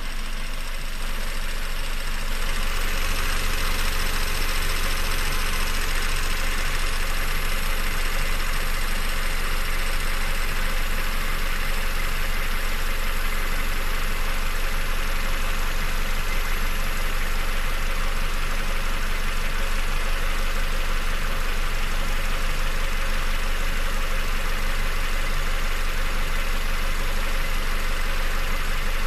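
Peugeot 407's EW10A 2.0-litre four-cylinder petrol engine running steadily at idle, with a noise the owner records as a strange sound.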